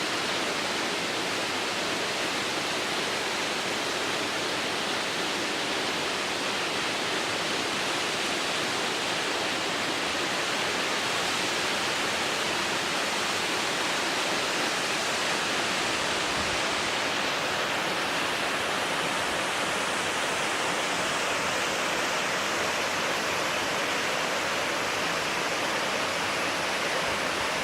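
Waterfall: a steady, even rush of falling water, unbroken throughout.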